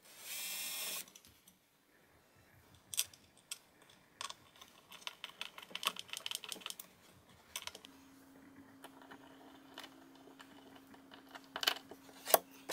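Cordless drill runs in one short burst of about a second against the edge of a chipboard shelf. Then comes a scattered run of light clicks and taps from small metal fittings being handled and placed on the panel.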